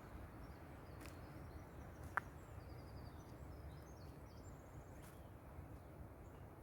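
Faint forest ambience: distant songbirds chirping and trilling over a steady low rumble, with a single sharp click about two seconds in.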